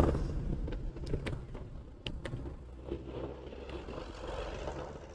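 Low, steady rumble of engines in slow, stop-and-go traffic, with trucks running close alongside the riding scooter. A few light clicks come in the first two and a half seconds.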